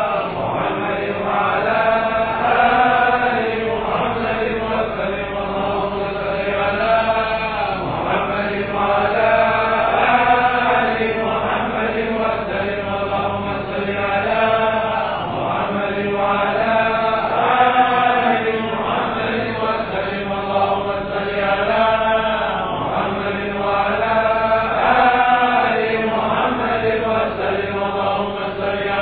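Congregation chanting dhikr together, one short phrase repeated over and over in a steady rising-and-falling cycle about every two seconds.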